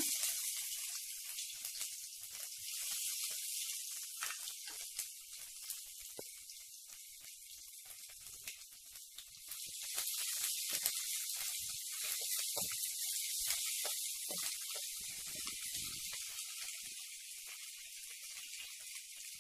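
Ginger-garlic paste sizzling as it fries in hot oil in a stainless steel kadai: a steady hiss with scattered crackles, growing louder about halfway through as it is stirred.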